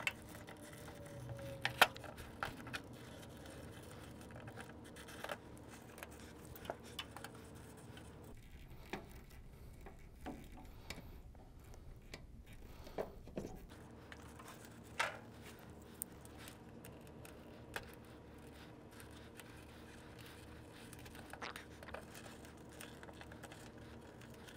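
Stranded SJ cable being cut and stripped with hand tools: scattered sharp snips and clicks of cutters and strippers, and scraping as the jacket and insulation are worked off with a knife, over faint room hum. The loudest snip comes about two seconds in.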